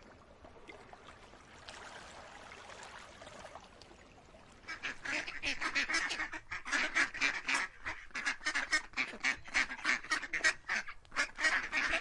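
Faint hiss, then from about four and a half seconds in a duck quacking in a fast, unbroken run of calls, about four or five a second.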